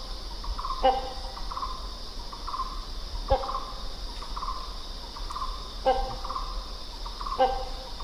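Hornbill calling: four short, loud calls spaced about two seconds apart, with softer rapid notes in between. A steady high hum runs underneath.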